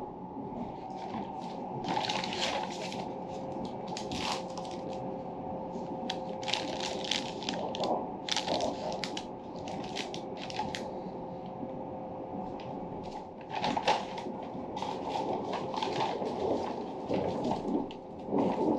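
Paper rustling and crinkling in irregular bursts as a kraft paper carrier bag and a paper food wrapper are handled, over the steady running hum of the train.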